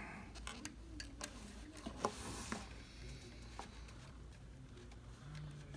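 Faint scattered clicks and taps of small metal parts being handled at the presser foot of an industrial sewing machine while a quick-change presser foot screw is pushed into place, with a brief rustle about two seconds in. A faint steady low hum runs underneath.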